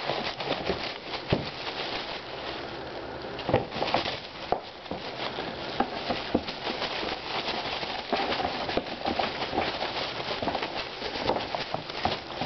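Crinkly white wrapping shaken and scrunched by hand, with knocks and scrapes of a cardboard shoebox as a cat pounces at it, a few sharper knocks standing out among the continuous rustling.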